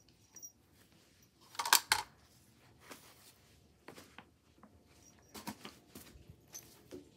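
Scattered light clatters and rustles of toys, boxes and books being picked up and moved by hand, with one louder clatter about two seconds in.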